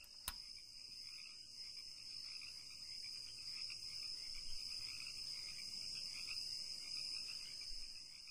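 Crickets chirping in a steady night chorus, with a single click just after the start.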